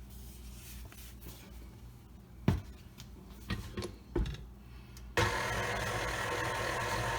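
A few knocks against a mixing bowl, the loudest about two and a half seconds in, then an electric mixer switches on about five seconds in and runs steadily with a whirring motor hum, beating egg and flour into pound cake batter.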